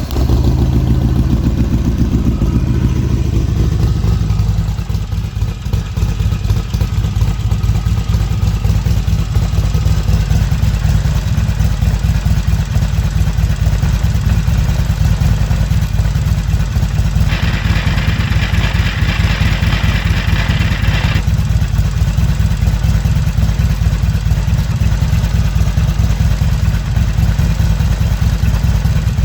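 Harley-Davidson XR1200's air-cooled V-twin idling just after start-up, a little faster for the first few seconds and then settling. It has the engine's usual light rattle but no longer any grinding from the primary drive, which now runs a new chain. About two-thirds through, a few seconds of higher-pitched hiss is added over it.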